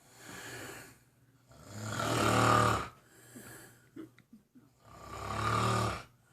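A sleeping pet snoring heavily: three long snores with a low buzz, the middle one the loudest, with small snuffling clicks between the second and third.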